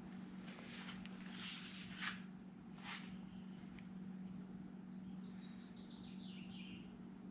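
Small metal engine parts being handled and fitted: a few light clinks and rustles in the first three seconds, the sharpest about two seconds in. A steady low hum runs underneath, and a short descending run of chirps comes a little past the middle.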